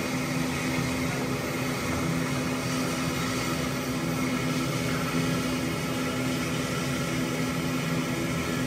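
Steady drone of an aircraft's engines and cockpit ventilation heard from inside the cockpit while it rolls slowly across the apron. A constant low hum runs under an even hiss.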